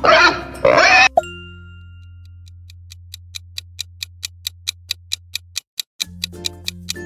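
Pig grunting and oinking for about the first second. Then comes a quiz countdown: clock-like ticking, about three to four ticks a second, over a low steady tone, with musical chords coming in near the end.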